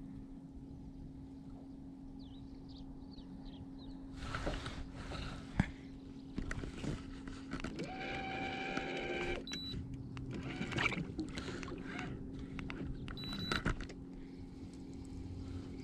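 Clicks and rustles of a spinning rod and reel being handled on a fishing kayak, starting about four seconds in, over a steady low electric hum. A short higher whine comes about eight seconds in.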